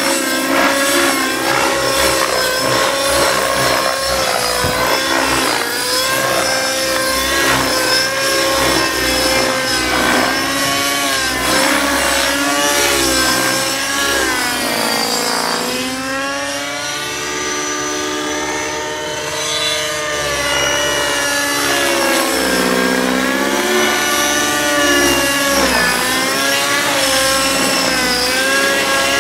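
Align T-Rex 600 Nitro radio-controlled helicopter in flight: its two-stroke nitro glow engine and rotor blades run at high speed, the pitch rising and falling as it manoeuvres. The note sags and recovers several times, most deeply about halfway through. The engine is new and still being broken in.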